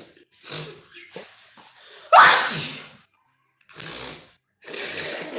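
A person sneezes once, loudly, about two seconds in, after a few short breathy intakes, then breathes out noisily twice. This is part of a sneezing fit brought on by an allergic rhinitis attack.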